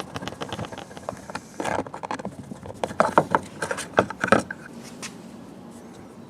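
Phillips screwdriver and hands working the handle grip free from a Gen 2 Toyota Prius front door panel: a run of irregular clicks, knocks and small scrapes, thickest in the middle, dying away about five seconds in.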